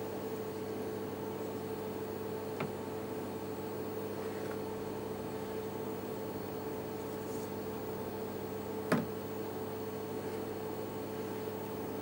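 A steady electrical hum with a faint hiss, broken by two light clicks, the louder one about nine seconds in.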